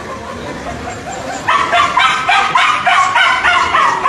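A dog crying in a rapid series of short, high-pitched yelps, about three a second, starting about a second and a half in.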